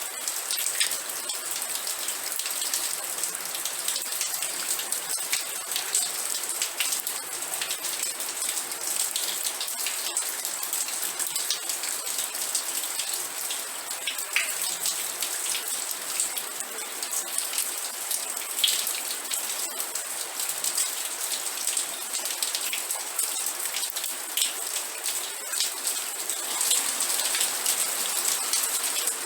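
Steady rain falling on a surface, a dense patter of many small drops.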